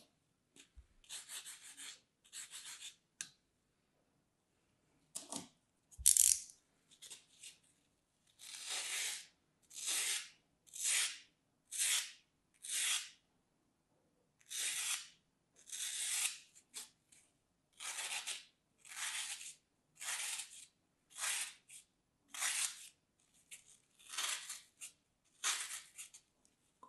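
Small scissors cutting into a dry, crumbly green block: a series of crisp crunching snips, each about half a second long, coming roughly once a second for most of the stretch. A single louder knock about six seconds in.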